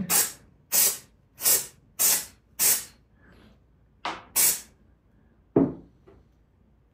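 Aerosol can of dye-penetrant developer sprayed in seven short hissing bursts, five evenly spaced and then two more after a brief pause, laying a light coat over a cast exhaust elbow for crack inspection. About a second later the can is set down on the table with a single knock.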